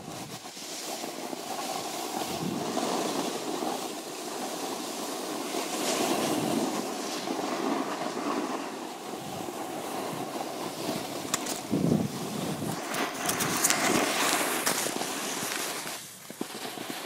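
Wind buffeting the microphone and the hiss and scrape of sliding down a ski slope on snow. The rushing noise swells and fades, with a few sharper scrapes and knocks in the later part, and it quietens just before the end.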